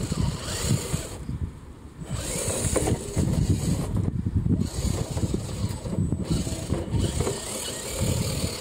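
Radio-controlled FTX Outback Tundra crawler driving over gravel: its knobbly tyres crunch over the stones while its brushed electric motor and gears whir. The whir stops and starts several times as the throttle is let off and applied.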